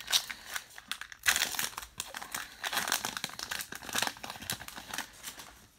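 Plastic wrapper of a baseball card pack crinkling and rustling as it is handled and opened, an irregular crackle with the loudest crinkles a little over a second in.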